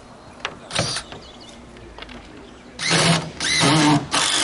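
Power drill running in short bursts, four times, with the motor's whine rising and falling in each; three of the bursts come close together near the end.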